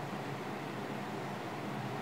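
Soft, steady hiss of mashed potatoes frying in oil in the pan, with no distinct scrapes from the spatula.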